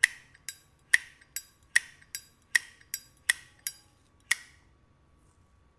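1981 brushed-chrome, solid-brass Zippo lighter, its lid flicked open and snapped shut again and again: about eleven sharp metallic clinks with a short ring, roughly two a second, alternating louder and softer, stopping about four seconds in.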